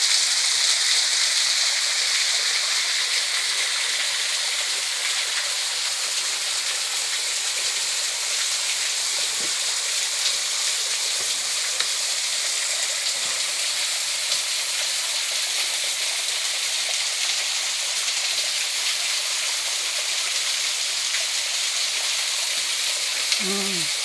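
Small waterfall on a forest stream spilling over rocks: a steady, hissy rush of falling water.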